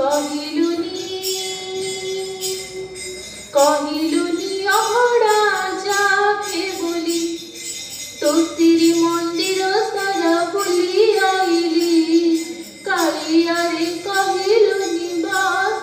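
Devotional song music: a sustained, gently bending melody line over steady percussion with jingling bells, the melody pausing briefly a few times.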